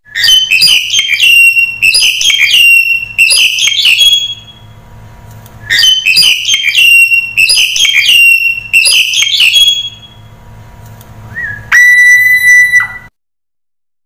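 Black-collared starling calling: two bursts of quick, shrill whistled notes, each about four seconds long, then one long steady whistle near the end.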